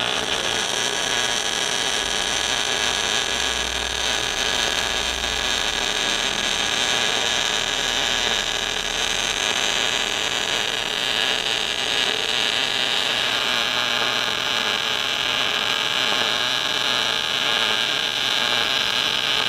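MIG welding arc laying a continuous pull weld on a quarter-inch mild steel T-joint: a steady, even hiss with no breaks.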